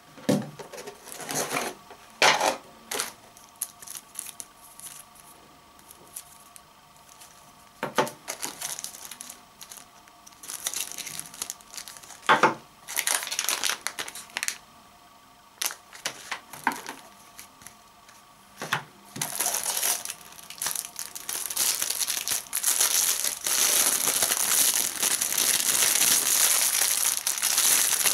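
Hands unpacking a smartphone box: scattered short knocks and rustles as packaging and accessories are picked up and set down. From about two-thirds of the way in, a clear plastic bag crinkles steadily as it is handled and opened.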